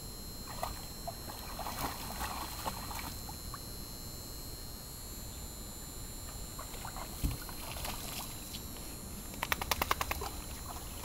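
Dogs wading in a shallow plastic pool of water, with light splashing and sloshing; near the end a quick run of sharp wet clicks as a dog laps at the water.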